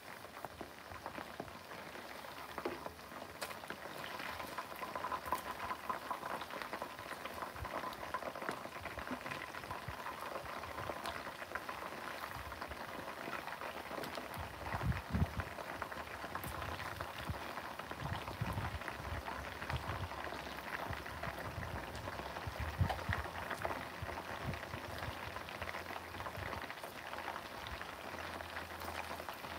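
Chicken wings deep-frying in hot oil in a pan: a steady, dense sizzle and crackle of bubbling oil, with a few low thumps near the middle.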